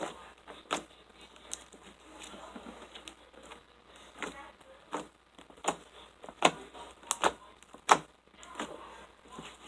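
Homemade slime being squeezed and worked by hand, giving a series of irregular sharp pops and clicks, loudest in the second half.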